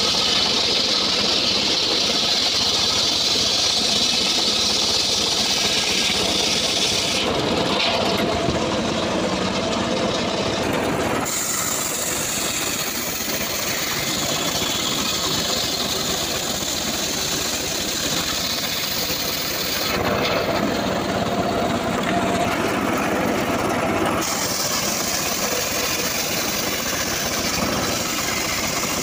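Homemade engine-driven table circular saw ripping a teak log lengthwise. The engine runs steadily under the hiss of the blade cutting, and the cutting noise shifts abruptly a few times.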